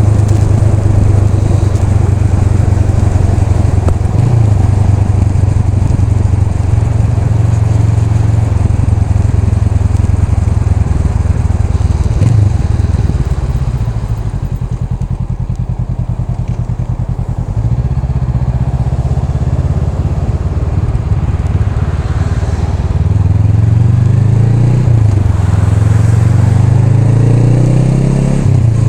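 Honda Rebel 500's parallel-twin engine running under way at a steady throttle. It eases off and goes quieter for a few seconds in the middle, then pulls hard near the end with the pitch rising in steps through gear changes.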